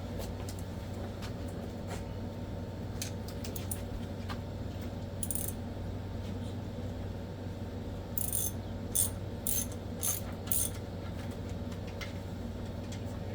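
Ratchet wrench with a socket clicking in short bursts as bolts are run in, several quick strokes about a second apart, over a steady low hum.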